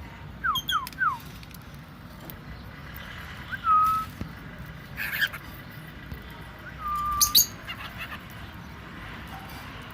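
Birds calling: three quick downward chirps about half a second in, then two short, level whistled notes a few seconds apart, with a couple of brief harsh noisy sounds between them.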